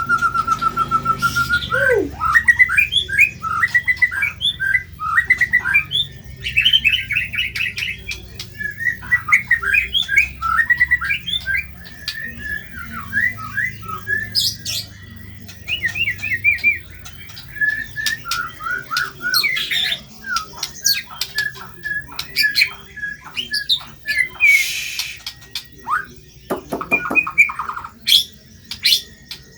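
White-rumped shama (murai batu) singing a long, varied string of whistles, rapid chattering runs and harsh rasping notes, broken by sharp clicks.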